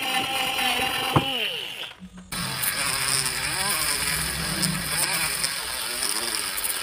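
Small electric mini drill running: first a drill bit boring into a thin metal plate, its whine dipping in pitch about a second in as the bit bites. Then, after a short break, a sanding drum on a mini rotary tool grinding the edge of a metal plate, a rougher, wavering grinding sound.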